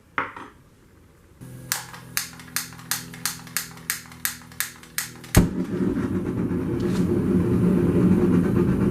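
A gas forge being lit: a motor hum starts, an igniter clicks about four times a second for a few seconds, then the burner catches with a sudden thump and keeps running as a loud, steady rush.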